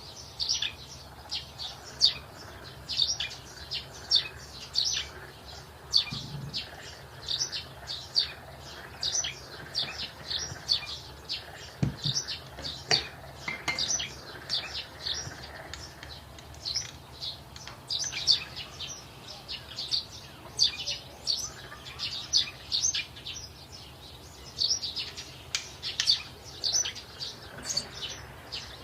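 Small birds chirping continuously, a rapid string of short high chirps several times a second.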